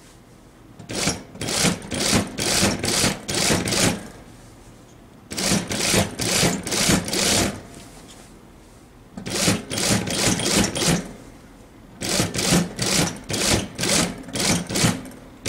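Unicorn industrial sewing machine stitching, run in four bursts of a couple of seconds each, with short pauses between them.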